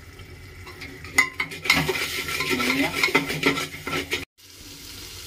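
A spatula stirring and scraping spiced tomato masala as it sizzles in oil in an aluminium pressure cooker, with sharp clicks of the spatula against the pot. The stirring starts about a second in and breaks off sharply about four seconds in.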